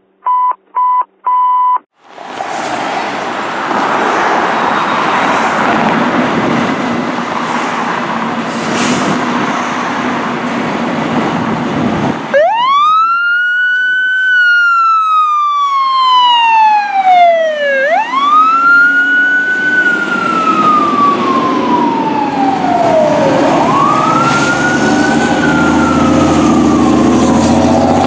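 Three short beeps, then a fire truck's diesel engine running loudly as it pulls out. From about twelve seconds in, a mechanical siren winds up quickly and coasts slowly down in pitch, three times over.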